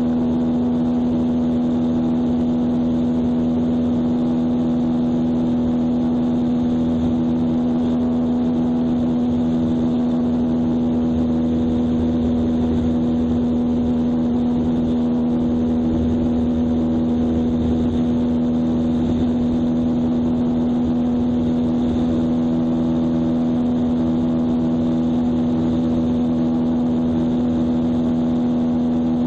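Light airplane's engine and propeller running steadily in cruise, one unchanging drone, with wind rushing past the airframe.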